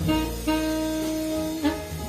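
Alto saxophone playing a slow jazz ballad melody: a short note, then one long held note lasting about a second, over a low bass note from the rhythm section.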